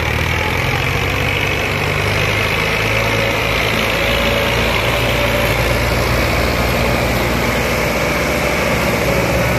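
Diesel tractor engines running steadily under heavy load, hauling a loaded trolley out of soft sand with one tractor chained to the front of the other.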